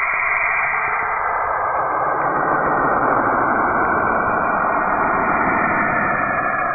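Space sound presented as Saturn: radio emissions from the planet's magnetic surroundings turned into audio. It plays as a dense, steady rushing drone with a few faint held tones in it, the low rumble growing stronger after about two seconds.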